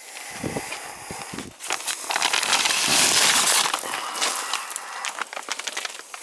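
Rustling, crackling handling noise with scattered small clicks, loudest a couple of seconds in: fiberglass insulation between the floor joists being pushed and pulled aside.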